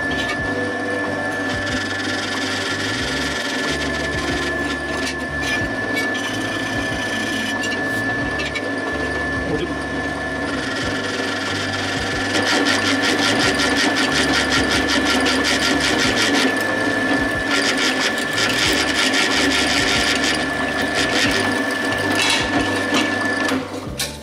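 Power tool running with a steady high whine while working an aluminium plate, getting louder about halfway through and stopping near the end. Music plays underneath.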